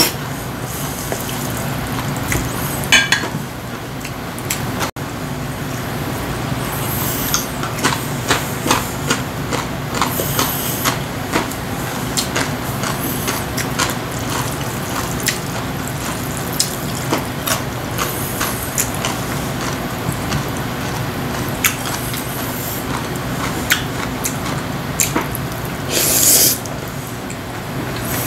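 Spicy mixed noodles (bibimguksu) slurped several times, the loudest slurp near the end. Between slurps there are many light clicks of chopsticks against a stainless-steel bowl, and chewing, over a steady low hum.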